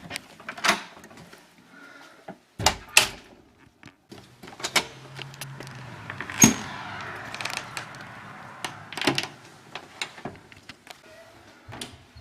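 A door worked by an LCN 1460 hydraulic door closer is opened with latch clicks, then swings shut with a scraping from a loose hinge that needs tightening. It closes with one loud knock about six and a half seconds in, and a few lighter clicks follow.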